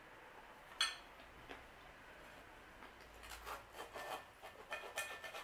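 Knife and fork cutting a pizza on a plate: a run of short, rasping sawing strokes of the knife through the pizza and against the plate, growing louder over the last two seconds. One sharp click comes about a second in.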